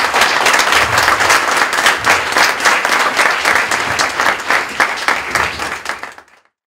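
Audience applauding: many hands clapping densely and steadily, which cuts off suddenly near the end.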